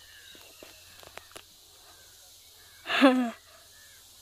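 A leaf whistle: a leaf held taut between the fingers and blown across at the lips gives one short, loud reedy squawk about three seconds in, dropping in pitch as it ends. A few faint light clicks come before it.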